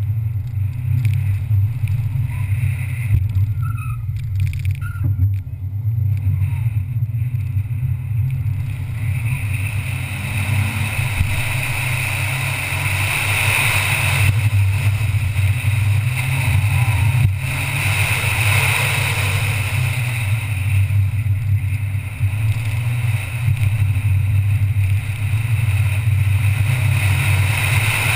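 Ford Fiesta ST's turbocharged 1.6-litre four-cylinder engine pulling the car hard through an autocross course, heard from a camera mounted on the hood: a steady low engine drone with a hiss that builds about ten seconds in.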